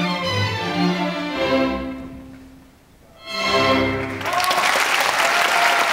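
Orchestra with strings carrying the tune, playing the closing bars of a ballet variation. The music fades almost to nothing about two seconds in, a final chord sounds just past three seconds, and audience applause breaks out about four seconds in and keeps going.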